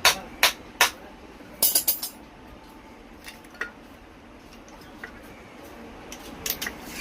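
Sharp metal clinks and taps from work on a starter motor. Three strikes come about 0.4 s apart at the start, then a quick rattle of several near two seconds in, a few light ticks and a couple more strikes near the end.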